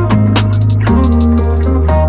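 Background music: a guitar-led instrumental with a steady bass line and percussive hits.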